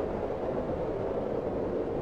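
Strong wind of a snowstorm blowing steadily, a constant rushing hiss with no gusts or breaks.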